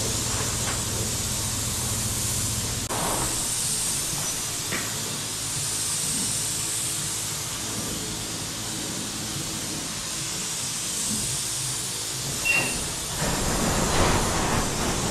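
Gravity-feed paint spray gun hissing as it sprays epoxy primer, the hiss swelling and easing from pass to pass. A low hum stops about three seconds in, and the noise grows louder near the end.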